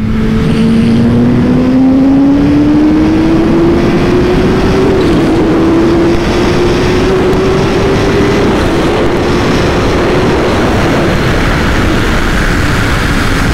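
Kawasaki Ninja H2's supercharged inline-four accelerating hard at high throttle on the highway, its pitch climbing steadily for about eight seconds and then easing, over heavy wind rush.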